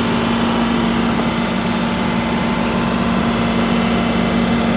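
John Deere 2038R's three-cylinder diesel engine running steadily at about 2200 RPM during a forced exhaust-filter regeneration, a higher regen speed than normal.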